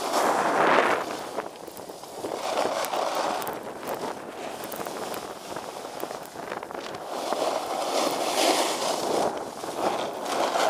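Snowboard edges carving and scraping through fresh snow, the hiss swelling with each turn about every two to three seconds, over wind on the microphone.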